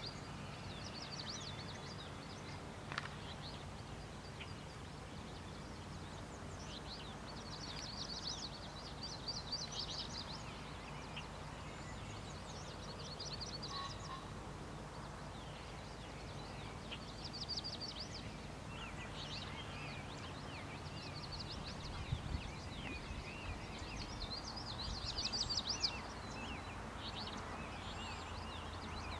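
Small songbirds singing in repeated bursts of quick, high chirps, over a steady low outdoor background hum.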